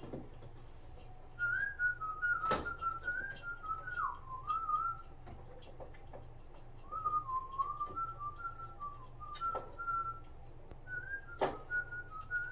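A person whistling a meandering tune in three phrases, with light clicks and ticks of small parts being handled and two sharper clicks.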